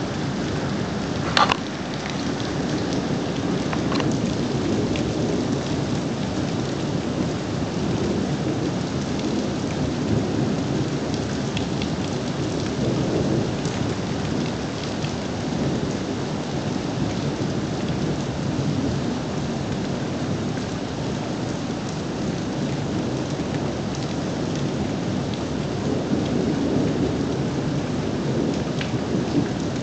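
Steady rain falling through a thunderstorm, with low thunder rumbling that swells and fades several times. A single sharp crack about a second and a half in is the loudest sound.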